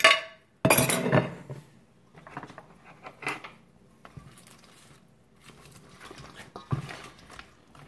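Kitchenware clatter: a glass serving plate set down on the counter and metal tongs clinking and scraping in a stainless steel bowl as sauced wings are tossed. The loudest clatter comes about a second in, followed by scattered softer clinks.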